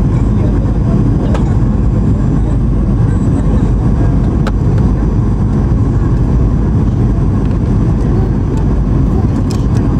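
Steady cabin noise of a Boeing 737-800 with CFM56-7B engines, airflow and engine sound heard from a seat inside, with a few faint clicks.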